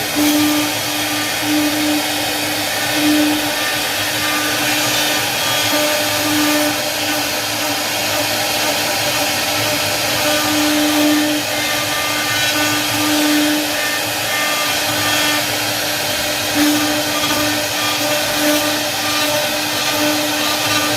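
CNC machine running: a steady motor and fan whir with a hum that swells and fades every second or two.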